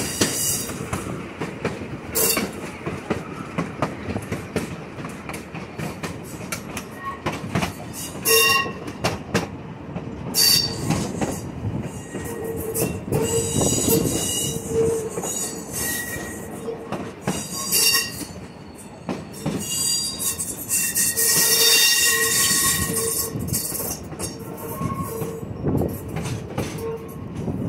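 Train wheels rolling on the rails, heard from an open gondola car: a steady rumble with many sharp clacks and knocks. High-pitched flange squeal comes and goes several times, longest about three quarters of the way through.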